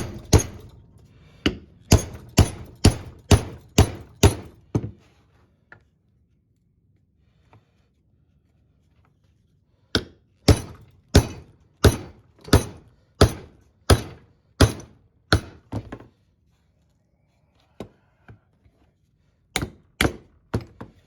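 Hammer blows driving steel bar stock into a 2x4 as a force fit, sharp strikes about two a second. Two long runs of blows with a pause of about five seconds between them, then a few scattered strikes near the end.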